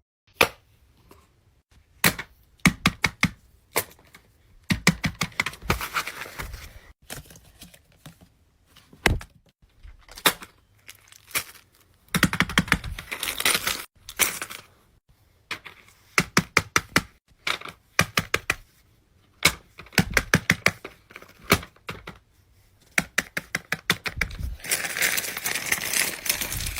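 Fidget toys being handled: clusters of rapid, sharp plastic clicks and taps with short pauses between, and a rustling, crinkling stretch near the end.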